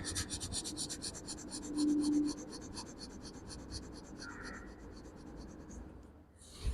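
A man's rapid yogic breathing, short forceful breaths in and out in a fast, even train of hissing puffs, which stops about six seconds in. A brief low hum sounds about two seconds in.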